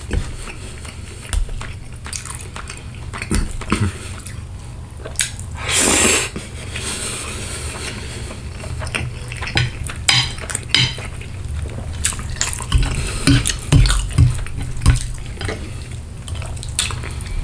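Close-miked eating sounds: a fork clinking and scraping on a plate while spaghetti in tomato sauce is twirled, and wet chewing and mouth sounds. A brief louder rush of noise comes about six seconds in.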